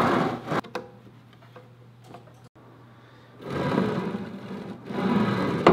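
Heavy aluminum-plate CNC bed rolling by hand on linear bearing blocks along supported round rails: a steady rolling rumble that stops about half a second in, then starts again about three and a half seconds in and ends with a sharp knock near the end.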